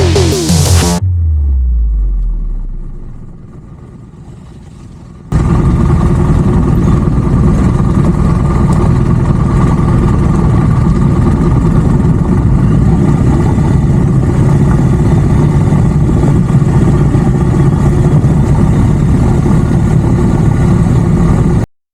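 Electronic music ending with a falling pitch sweep, then after a few seconds a motorcycle engine running steadily, which cuts off abruptly near the end.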